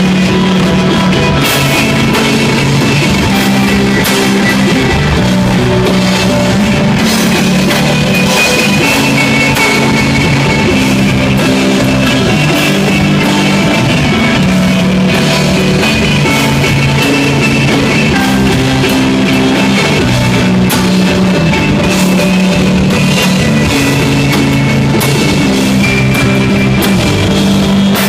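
Instrumental desert rock played live by a trio: electric guitar, electric bass holding long low notes, and a drum kit, loud and steady throughout.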